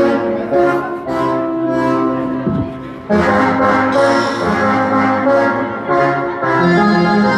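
Recorded dance music with horns played loud over a mobile DJ sound system.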